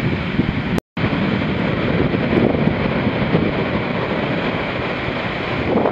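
Heavy shorebreak surf: a steady rush of churning whitewater washing up the sand, with wind on the microphone. A split-second dropout to silence about a second in.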